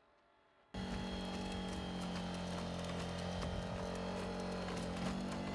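Boston Dynamics LS3 four-legged robot running: a loud steady engine drone with irregular clattering of its feet. The sound cuts in abruptly under a second in.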